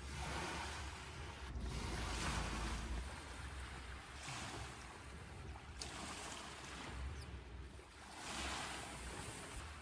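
Small waves washing in on a lakeshore, swelling and falling back about every two seconds, with a low wind rumble on the microphone.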